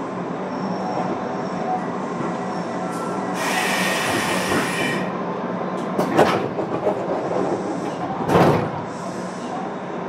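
Inside a JR West 201 series commuter train car while it runs: steady wheel-and-rail running noise. A hiss lasting about a second and a half begins about three and a half seconds in, and two sharp knocks come later, the second near the end the loudest.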